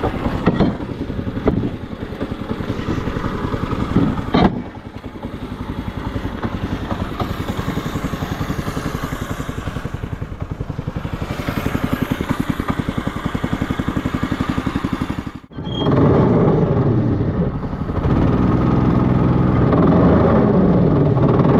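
Small engine of a motorized rail cart running steadily along the track, with a few sharp knocks in the first five seconds. About fifteen seconds in the sound drops out for a moment, and the engine then comes back louder.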